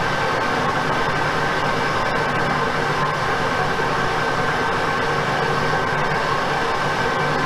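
Metal lathe running with a carbide boring bar taking a light half-millimetre pass in an aluminium alloy wheel's center bore: a steady mechanical drone with a steady high whine over it.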